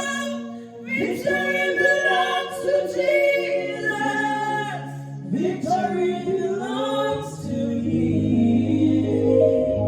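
Group of voices singing a gospel song, with a sustained low note underneath in the second half.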